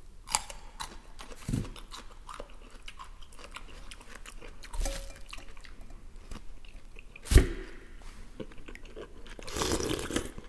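Close-up chewing and crunching of a fresh salted cucumber, with bites of bread, full of small wet clicks. There is one sharp knock about seven seconds in, the loudest sound, and a spoonful of borscht is slurped near the end.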